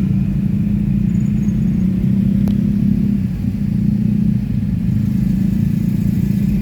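Large bus diesel engine running close by, a steady low rumble that dips briefly about three seconds in; a single sharp click about two and a half seconds in.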